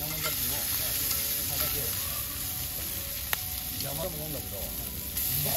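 Horumon sizzling steadily as it fries in a frying pan over a wood fire, turned with cooking chopsticks, with one sharp click about three seconds in.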